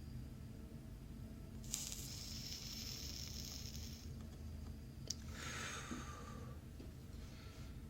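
Flux sizzling under a soldering iron as the new relay's pins are soldered to the circuit board. There are two faint hisses of a couple of seconds each, with a click between them.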